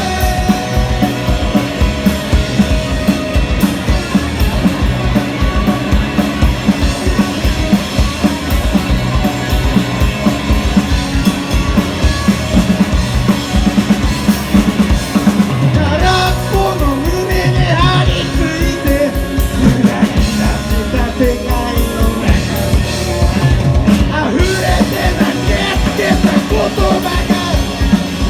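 Rock band playing a song, with a steady drum-kit beat under singing.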